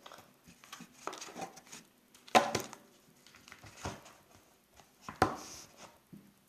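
Accessories and packaging of a phone box being handled and put back into the box: soft rustling and a few sharp knocks, the loudest about two seconds in and another about five seconds in.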